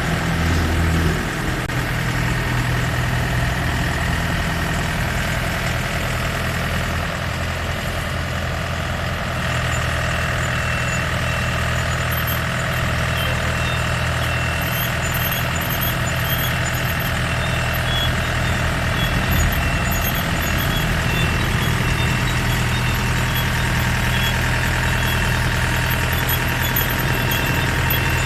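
Yanmar YH700 combine harvester running steadily, its diesel engine holding a constant speed.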